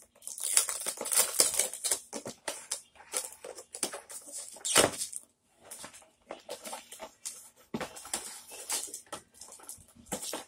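Rustling, scraping and tapping of a children's book box set and its books being handled and opened, in many short, irregular strokes, with one louder knock nearly five seconds in.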